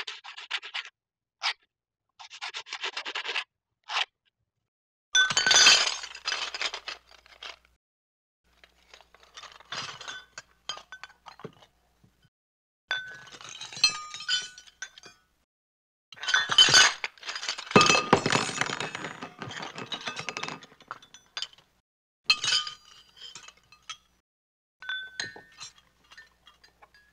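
A run of separate cartoon sound effects with short silent gaps between them: quick scratchy strokes, clinks, and glass-like crashes, the biggest crash about two thirds of the way through.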